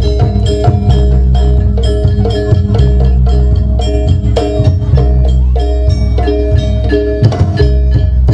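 Javanese gamelan music for a jaranan buto dance: metallophones strike a fast, repeating melody over drums and a deep, steady bass.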